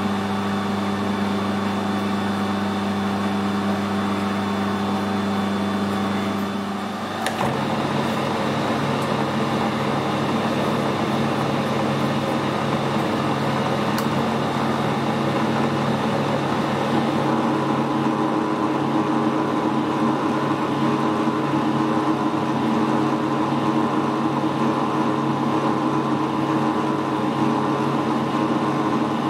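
Metal lathe running under power while a carbide threading insert cuts an external screw thread on a steel sleeve. It runs as a steady hum that changes abruptly about seven seconds in and is noisier after that.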